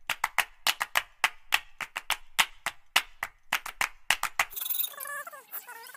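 A metal spoon knocking and scraping against a steel karahi while the roasted pinni mixture is stirred, giving rapid, irregular sharp clicks several times a second. They stop suddenly about four and a half seconds in, and fainter wavering tones follow.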